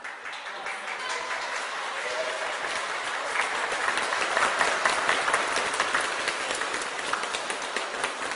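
Audience applauding, building over the first few seconds, loudest around the middle, then easing off.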